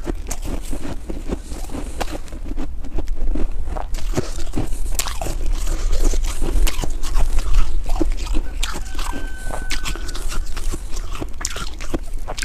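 Close-miked crunching of packed snow: a mouthful of snow being chewed, the snowball squeezed and packed in plastic-gloved hands, and a fresh bite near the end. Dense, irregular crisp crunches throughout.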